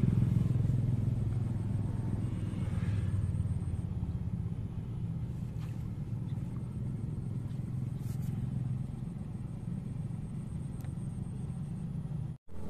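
Low, steady rumble of passing road traffic, loudest at the start and slowly fading.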